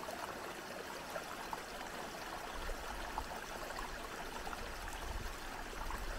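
Rainwater runoff trickling and flowing through and over a stone-filled gabion check dam, a steady splashing rush. A low rumble joins in about halfway through.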